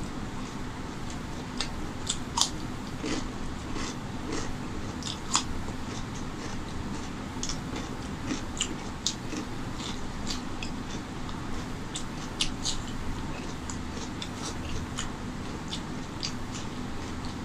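Close-miked chewing of rice and chicken curry eaten by hand, with many irregular wet mouth clicks and smacks, over a steady low background hum.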